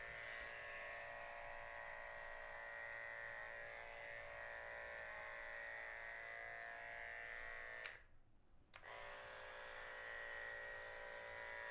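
A corded professional electric pet clipper running with a steady hum as it trims a Persian cat's long coat. It cuts out for under a second about eight seconds in, then runs again.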